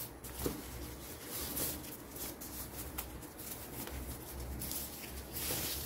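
Faint rustling and handling noise of packaging and a keyboard wrist rest being taken out, with a few light taps.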